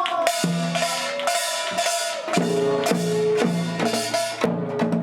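Samulnori percussion ensemble playing: Korean gongs and drums struck in a fast, driving rhythm, with the ringing gong tones sounding under dense stick strokes.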